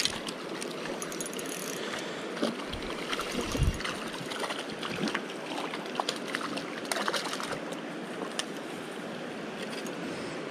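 Steady rush of a shallow, rocky creek, with scattered small clicks from a spinning reel and rod handling while a hooked brook trout is reeled in. A few dull thumps come about three seconds in.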